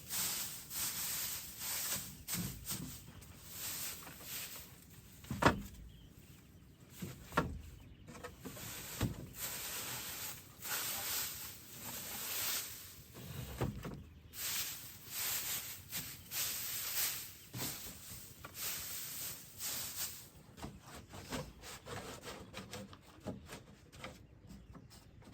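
Footsteps and rustling through dry leaves and undergrowth, in short noisy swishes about once a second, with a few sharper thumps between about five and nine seconds in.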